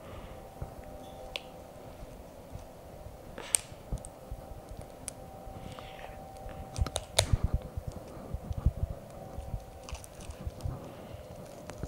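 Latex balloons being handled and pulled apart by hand: scattered small clicks and rubbery handling noises, with a run of soft low knocks about seven to nine seconds in.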